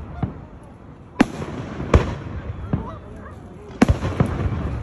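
Aerial firework shells bursting in the sky: three loud bangs, about a second in, about two seconds in and near the end, with fainter pops between.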